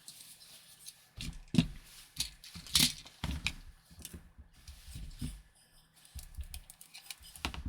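Irregular clicks, knocks and light rattles of a battery being fitted into a Wolverine MTW-9 airsoft rifle, with two sharper knocks at about a second and a half and three seconds in.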